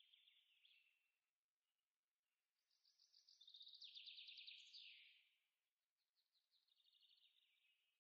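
Faint songbird song: phrases of fast repeated notes that step down in pitch. The loudest phrase comes about three to five seconds in, and a softer one starts near the end.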